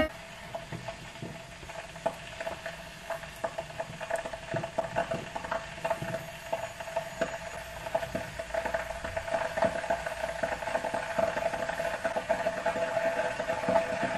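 Glass electric kettle heating water: dense crackling and ticking over a faint hiss, with a steady tone underneath, slowly growing louder as the water nears the boil.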